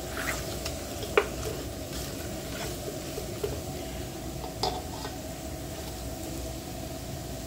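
Beef rib pieces sizzling in oil and spices in an aluminium pressure cooker while a silicone spatula stirs them, with a few sharp clicks of the spatula against the pot, the loudest about a second in and just past the middle.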